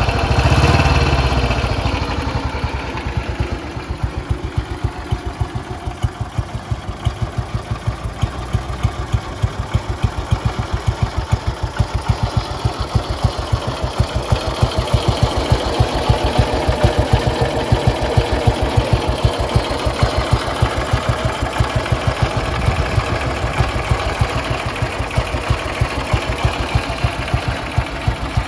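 1957 Ariel NH350's single-cylinder four-stroke engine idling with an even beat of exhaust pulses, louder for the first couple of seconds before settling, and rising slightly again a little past halfway.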